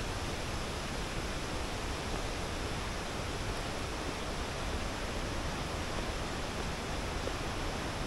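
Ryuzu Falls, a cascade waterfall running with a high flow, its water rushing with a steady, unbroken roar.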